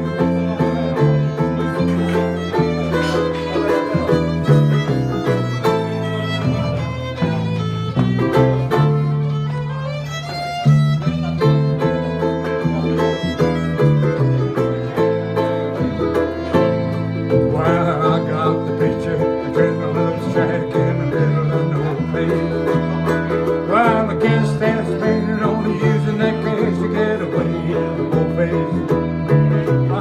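Acoustic band playing an instrumental break with no singing: fiddle over strummed acoustic guitar and a small strummed string instrument, in a country style.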